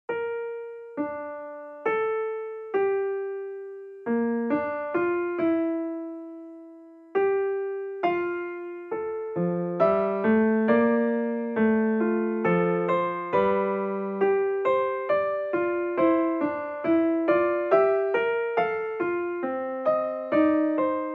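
Background music: a gentle keyboard tune of single struck notes that ring and fade, slow and sparse at first. About halfway through, lower accompanying notes join and the playing grows busier.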